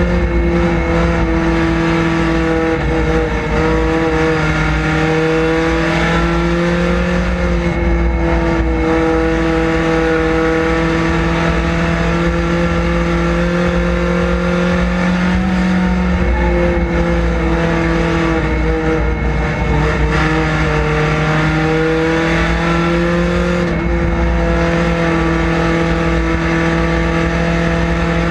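Chevrolet Cavalier street stock race car's engine, heard from inside the cockpit, running hard under racing load. Its pitch dips and climbs again several times as the car lifts off and gets back on the throttle around the oval.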